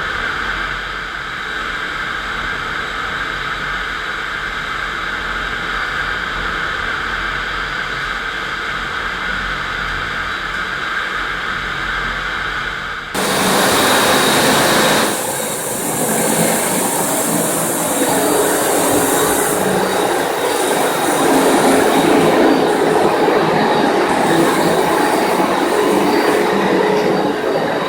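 FastPrep walk-behind concrete floor grinder running, its electric motor driving diamond tooling across a concrete floor: a steady mechanical noise with several whining tones. About halfway through the sound changes abruptly, becoming louder and brighter.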